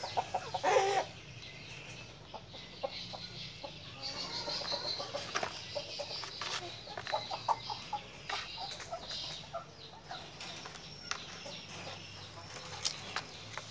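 Birds calling around: short, scattered calls and chirps, one lower call about a second in, with a few clicks over a faint steady low hum.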